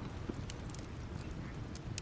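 Campfire burning down to embers, crackling with scattered sharp pops over a steady low rumble.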